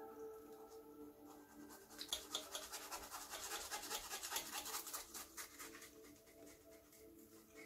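Rapid, scratchy rustling of something handled in the hands, starting about two seconds in and fading out about three and a half seconds later, over faint background music.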